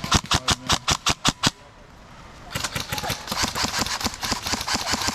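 Airsoft gun firing a rapid string of sharp shots, about five a second, which stops about a second and a half in. After a short pause a quieter, faster clatter of shots follows.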